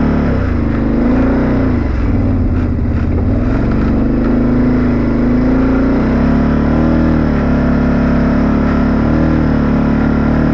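Engine of the machine towing an old disc harrow through the field, running steadily under load with its pitch wavering up and down slightly.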